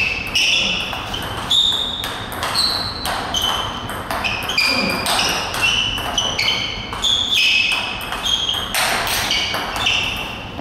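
Table tennis rally: the ball clicking off the bats and the table about two to three times a second, each hit ringing briefly.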